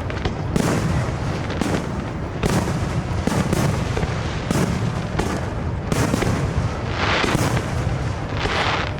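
Aerial fireworks going off in quick succession: a dense run of booms, roughly one to two a second, with crackling hiss trailing some of the shells near the end.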